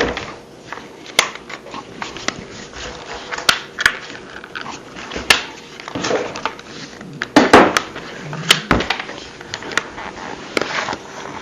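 Irregular clicks, knocks and rattles of a small pole saw's parts being handled and worked at as the extension pole is pulled apart from the handle, which is hard to get to come apart.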